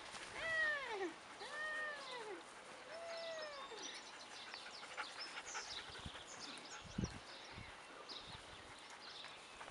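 Belgian Shepherd puppy whining three times in the first four seconds, each cry rising and then falling in pitch. Faint rustles and ticks follow.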